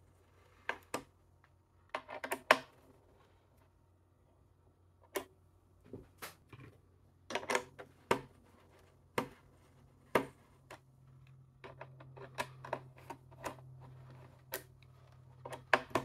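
Irregular small clicks and light metallic taps as the captive screws holding the CPU heatsink of an HP EliteDesk 800 G3 Mini are worked loose.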